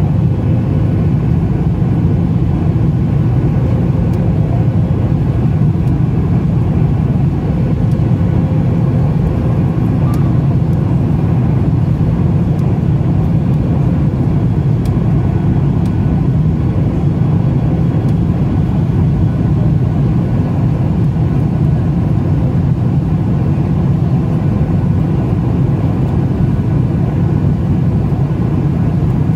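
Steady cabin noise of a Boeing 737 MAX 8 climbing out after takeoff: a low, even rumble from its CFM LEAP-1B engines and the airflow over the fuselage.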